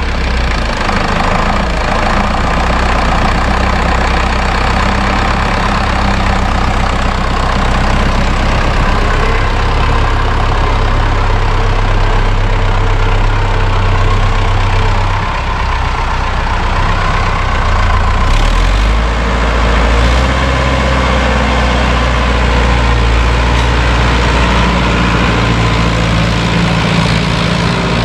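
Sonalika DI 750 tractor's diesel engine running steadily under load as it pulls a tine cultivator through ploughed soil. The engine note changes about two-thirds of the way through.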